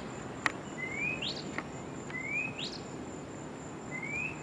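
A songbird singing three short rising whistled notes about a second and a half apart, the second sweeping up sharply at its end. A steady high-pitched tone runs underneath.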